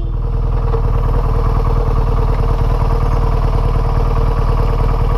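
BMW motorcycle engine running steadily while the bike is ridden along a road, heard from the rider's seat.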